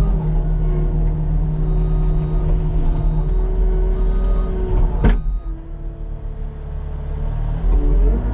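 Diesel engine of a piece of earth-moving equipment running steadily under work, with one sharp clank about five seconds in and the engine note changing near the end.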